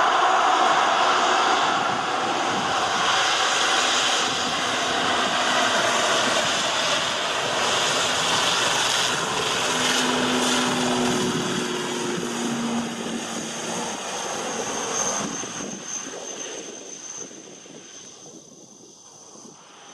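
ATR 72 turboprop airliner's twin propeller engines at takeoff power during the takeoff roll, a dense steady noise with a low propeller drone that comes through most clearly as it passes close. The sound fades steadily over the last few seconds as the aircraft runs away down the runway.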